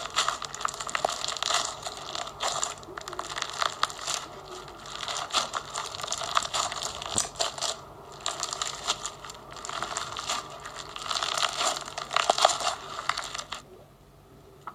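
Fishbowl slime, a slime packed with small plastic fishbowl beads, being squeezed and pressed by hand, giving dense crunchy crackling and clicking. It stops about a second before the end.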